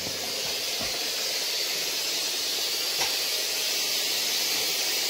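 Morphy Richards 9-in-1 steam mop hissing steadily as it steams a hard floor.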